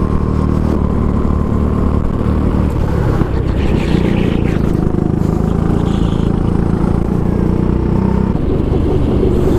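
Go-kart engine running hard, heard from onboard the kart. Its note changes about three seconds in as the kart slows for a tight hairpin, then steadies again as it drives on down the straight.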